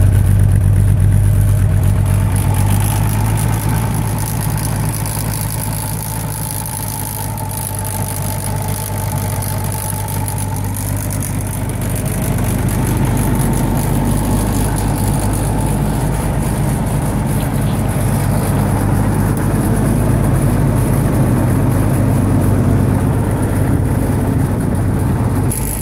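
Massey Harris 744 tractor engine running steadily with a deep, even hum, a little quieter for a few seconds partway through.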